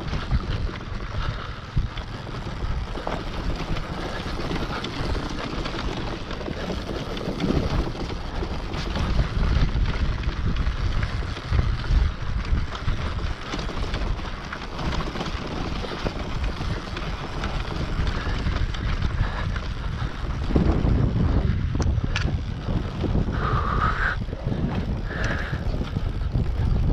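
Enduro dirt bike's engine running at low revs at riding pace, with wind buffeting the microphone.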